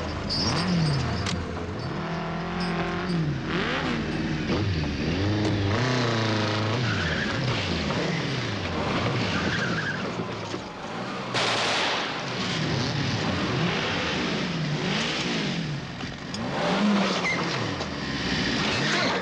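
Chase-scene vehicle sounds: engines revving up and falling away again and again as vehicles speed past, mixed with tyre squeals and skidding, and a sharp rush of noise about eleven seconds in.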